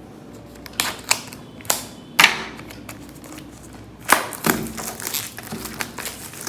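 Hands opening a product box and handling its packaging: a string of sharp clicks, taps and rustles, the loudest about two seconds in.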